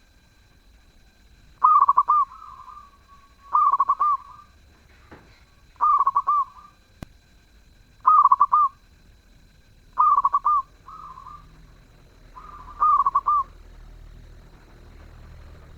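Zebra dove (perkutut) cooing: six short rolling coo phrases about two seconds apart, each trailing off more softly.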